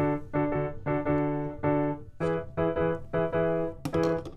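Background music: a bright keyboard tune of short, detached chords, about three a second.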